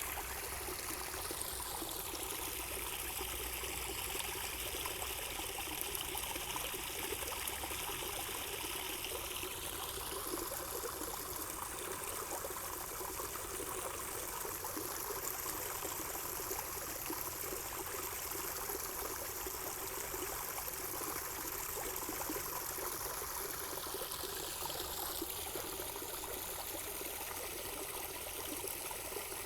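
Running water trickling and splashing steadily, its hiss shifting slowly in pitch.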